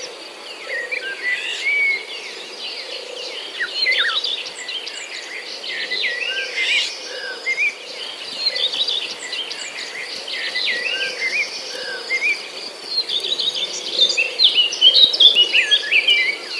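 Several birds chirping and calling with quick, varied notes over a steady high-pitched insect drone. The calls grow busiest and loudest near the end.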